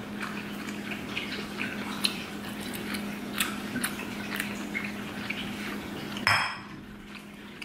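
Fingers picking through pieces of boiled octopus tentacle in a small bowl: light, scattered clicks and taps against the bowl over a steady low hum, with one louder brief noise about six seconds in.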